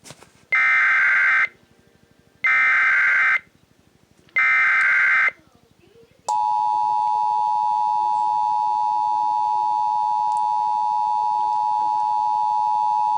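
Emergency Alert System activation from a SAGE ENDEC: three one-second bursts of the SAME header data tones, a buzzing two-pitch screech, about a second apart. About six seconds in, the steady two-tone EAS attention signal (853 and 960 Hz) starts and holds.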